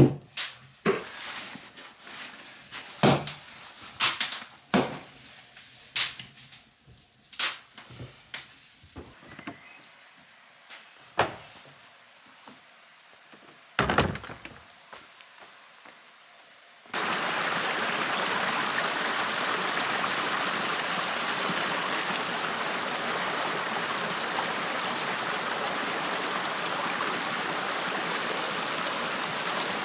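Clicks and knocks of things being handled on a wooden table, then a single heavy thunk of the bothy's wooden door about fourteen seconds in. From about seventeen seconds, the steady rush of a shallow stream running over rocks.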